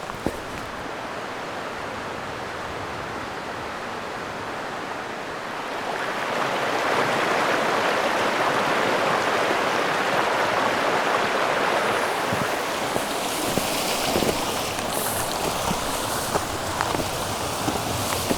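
A mountain stream rushing steadily, growing louder about six seconds in.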